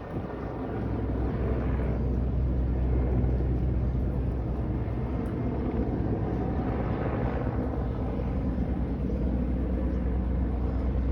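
Steady low engine rumble with a droning hum, and swells of rushing noise about two seconds and seven seconds in.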